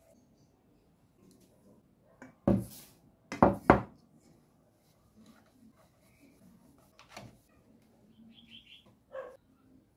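Stainless steel mixing bowls knocked and set down on a wooden tabletop: one knock about two and a half seconds in, then a quick double clatter a second later. Fainter knocks follow near seven and nine seconds.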